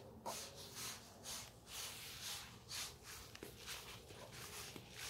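Faint, regular footsteps on a lawn, about two steps a second.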